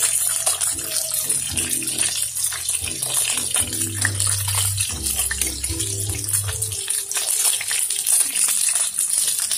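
Whole fish frying in hot oil in a pan: a steady sizzle with dense crackling and spitting.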